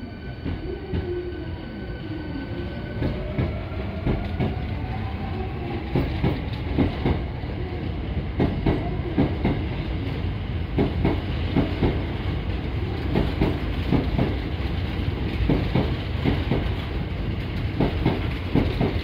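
Hankyu 8300-series electric train accelerating away from a station platform: its VVVF inverter and traction motors give a whine that rises in pitch over the first few seconds. The wheels then clack over rail joints, the clacks coming faster as the train gathers speed, over a steady low rumble.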